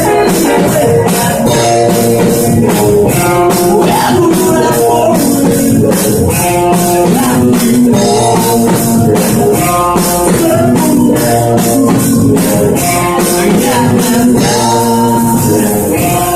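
Live rock band playing an instrumental passage: guitar over a drum kit keeping a steady beat.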